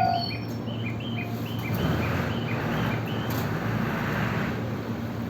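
JR 205-series electric train rolling slowly into a station: a steady low hum with a hiss of running noise that swells in the middle and then eases. A steady warning tone cuts off just at the start, and a run of short high notes repeats about three times a second through the first three seconds.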